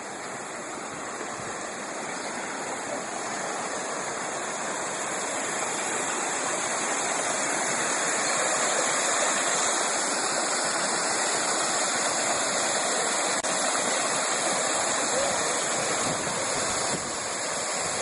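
Rushing water of a mountain river pouring over a waterfall: a steady rush that grows louder over the first half and then holds.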